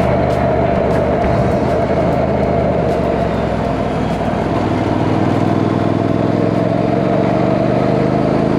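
Vehicle engine running steadily, its pitch rising slowly over the second half.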